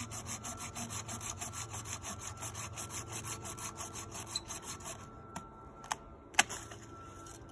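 Small folding trail saw cutting through a resin-rich fallen pine bough in quick back-and-forth strokes, stopping about five seconds in. Three sharp cracks follow, the last the loudest, as the chunk of fatwood is worked free by hand.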